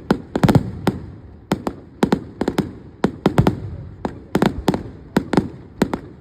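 Fireworks display: a rapid series of sharp bangs, several a second and often in quick clusters, each followed by a low rolling echo.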